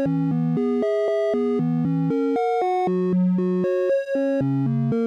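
Two Eurorack analog oscillators, a Malekko Anti-Oscillator and a Sputnik oscillator, play a stepped sequence of scale-quantized notes at about four notes a second. The second voice repeats the first's pattern one step later, so they sound as changing two-note chords driven by a four-channel analog shift register.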